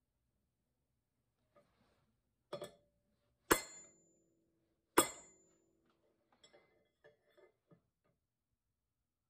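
Steel striking steel: a light double tap, then two hard hammer blows about a second and a half apart that each ring on, followed by a few light clinks.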